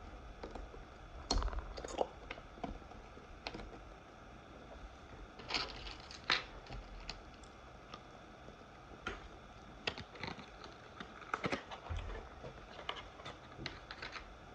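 Irregular light clicks and taps, a few at a time with short gaps between, from hands working at a laptop.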